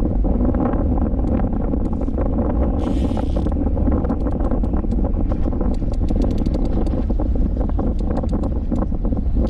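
Strong wind buffeting the microphone on a small fishing boat, with a short hiss about three seconds in and a run of light clicks in the second half.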